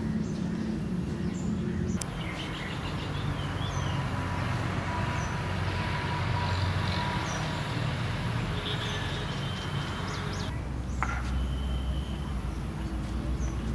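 Outdoor ambience: small birds chirping here and there over a steady low rumble, which changes abruptly twice.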